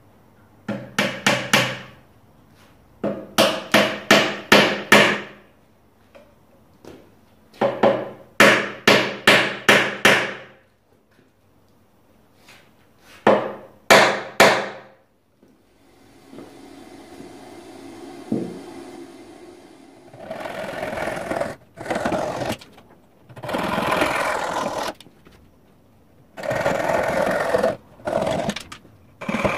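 Hammer tapping small wooden wedges into the split tops of Windsor chair spindles to lock them in the glued bow: four bursts of quick taps, five or six at a time. From about halfway, repeated rasping cutting strokes on the wood take over.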